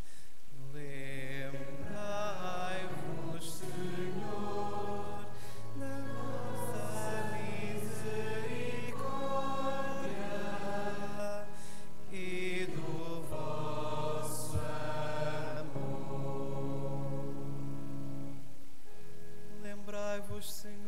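Slow sung psalm chant: voices holding long notes over sustained low accompanying chords.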